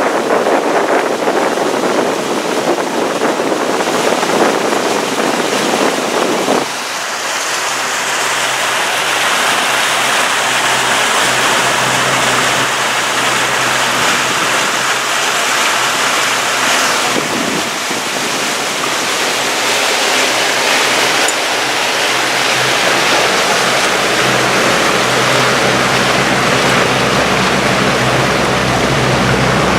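Motorboat under way: wind buffeting the microphone over a steady rush of water and the low hum of the boat's motor. About seven seconds in the wind buffeting drops away, leaving the water rush and an even engine hum that grows a little stronger near the end.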